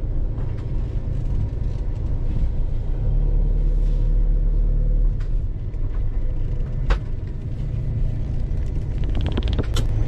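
Iveco motorhome driving slowly, its engine and road rumble heard from inside the cab, with one sharp click a little before seven seconds in.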